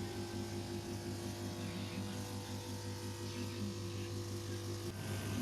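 A steady mechanical hum with a buzzing tone, which cuts off just before the end.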